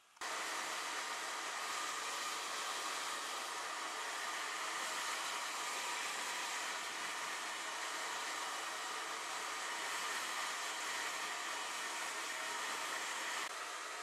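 Hair dryer switched on and running steadily, a continuous blowing hiss with a steady motor whine, starting abruptly just after the start and dropping slightly in level near the end.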